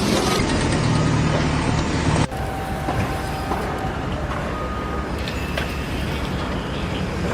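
A heavy vehicle's engine running, with a sudden drop in level and a change in the sound about two seconds in.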